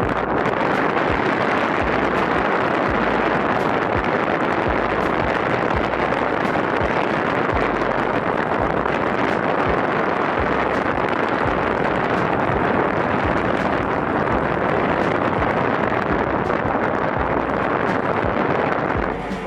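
Steady rushing noise like wind buffeting the microphone, with low rumbles underneath.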